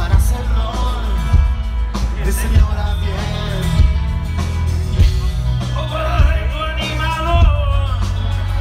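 Live rock band playing amplified electric guitars, bass and drums, heard from within the audience.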